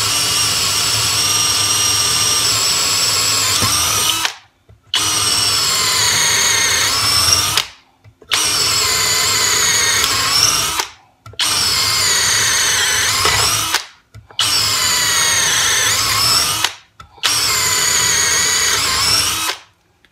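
Greenworks 24V brushless 1/2-inch drill driver in its faster gear 2, boring into wood with a 5/16-inch auger bit. It runs in six spells of two to four seconds each, with brief stops between, and its whine wavers in pitch under load.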